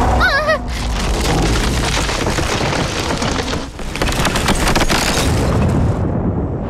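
Cartoon action sound effects: a short warbling tone at the start, then a long, loud, booming rumble with crackles that eases briefly about halfway and builds again.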